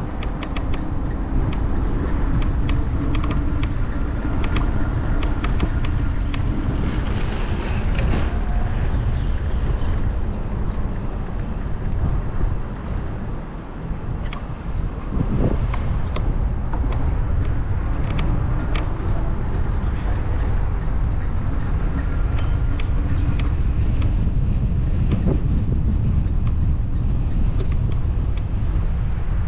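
Bicycle riding over paving, heard from a GoPro mounted on it: a steady low rumble of tyres and wind on the microphone, with frequent short clicks and rattles from the bike.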